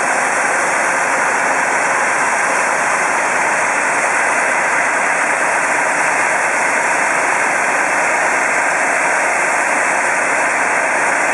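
Tractor PTO-driven grain auger running steadily, wheat pouring through it into a grain trailer: an even, loud rushing noise without breaks.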